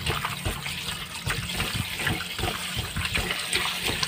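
Kitchen tap running into a bowl of sliced green papaya, with irregular splashes as a hand rubs and stirs the pieces to wash them.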